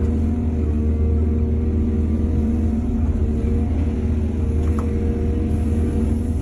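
Heavy diesel engine of earthmoving machinery running steadily, a deep, even hum with no change in speed.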